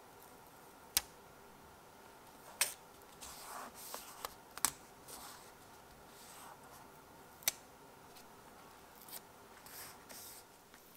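Tweezers handling paper stickers and pressing them onto a planner page: several sharp clicks and taps a second or more apart, with soft paper rustling in between.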